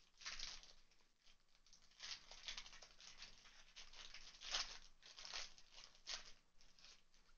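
Foil wrapper of a Pokémon card booster pack torn open and crinkled as the cards are slid out: a faint run of short crinkles, the loudest about four and a half seconds in.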